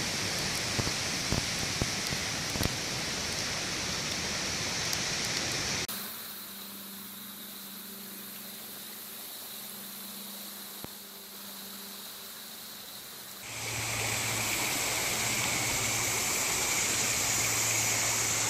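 A campfire crackling with scattered pops, then after a cut a quieter steady hiss of distant flowing water. From about three-quarters of the way through comes the louder, steady rush of a nearby stream.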